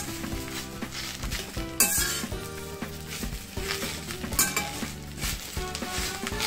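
Metal spoon stirring and scraping fresh drumstick (moringa) leaves around a stainless steel kadai as they dry-roast on a low flame, the damp leaves faintly sizzling. The spoon knocks sharply against the pan a couple of times, loudest about two seconds in and again past four seconds.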